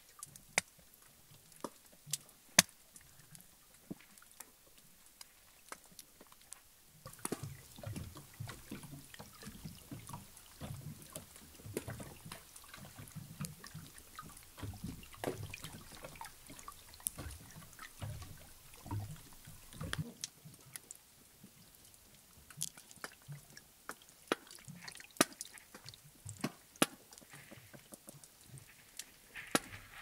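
Underwater sound of a sea loch heard through a hydrophone: scattered sharp clicks and snaps, with a busier stretch of soft low knocking and crackling from about 7 to 20 seconds in.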